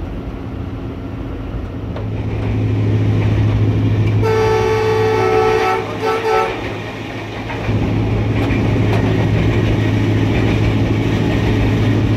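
Diesel-electric locomotive engine running under power, heard from inside the cab, its drone building a couple of seconds in. The locomotive's horn sounds one long blast and then a short second toot. After the horn the engine note dips and then picks up again.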